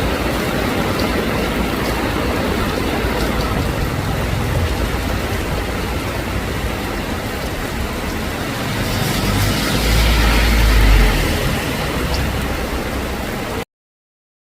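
Heavy rain and slow road traffic on a flooded street: a steady wash of noise with a low engine rumble. It swells as a vehicle passes close about nine to eleven seconds in, then cuts off abruptly near the end.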